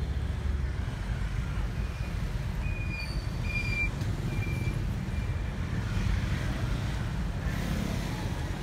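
Street traffic heard from inside a moving car: a steady low rumble of engine and road. A string of short, high beeps comes about three to five seconds in.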